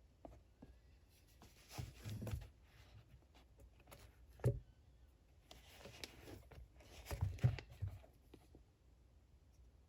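Hand work on a shoe at a workbench: scattered knocks and short scraping sounds in a few clusters, with quieter stretches between.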